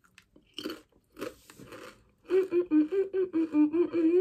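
A few crunchy bites and chewing of a crisp snack, followed from about halfway by a woman humming a tune with her mouth full.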